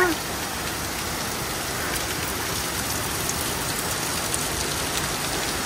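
Waterfall water falling as a curtain of drops from a rock overhang and splashing onto wet rock and the stone path, a steady rain-like patter.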